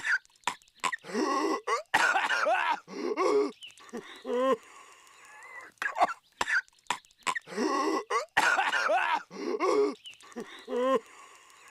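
Cartoon voice of Patrick Star coughing and hacking violently: long, strained bouts of coughing with a pitched, wavering voice in them, broken by short sharp coughs. The same fit repeats about every six seconds as a loop.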